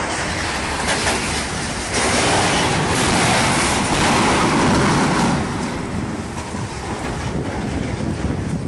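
Storm-force wind gusting and buffeting the microphone, a loud rushing that swells for about three seconds in the middle and then eases.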